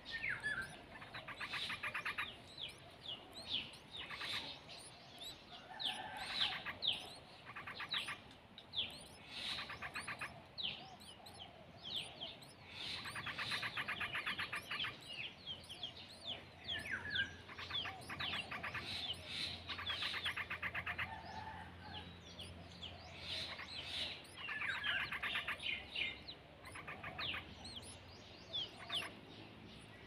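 Yellow-vented bulbuls chirping at the nest. Scattered short chirps are broken every few seconds by fast rattling runs of chirps lasting a second or two.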